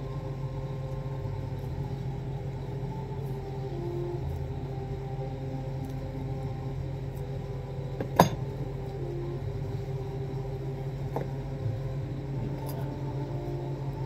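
Steady low mechanical hum with a few faint steady tones, and one sharp knock about eight seconds in, with a smaller one a few seconds later.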